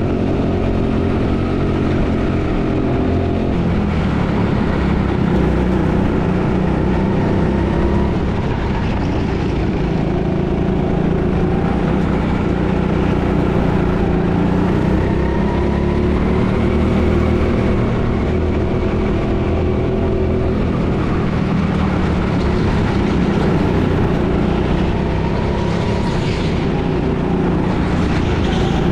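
Go-kart engine heard from the driver's seat while lapping, its pitch rising and falling with acceleration and braking through the corners.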